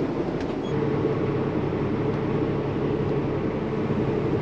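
Semi truck's diesel engine idling, heard from inside the cab: a steady hum that grows a little stronger about a second in.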